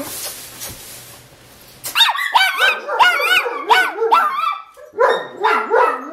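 Large shepherd-type dog barking: after about two seconds it breaks into a rapid run of high, sharp yelping barks, about three or four a second, then turns to longer, wavering howl-like calls near the end.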